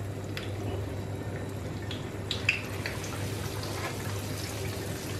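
Pieces of egg-and-flour-coated salt cod frying in hot oil in a pan, a steady sizzle. A few light clicks of a fork in the pan come about halfway through.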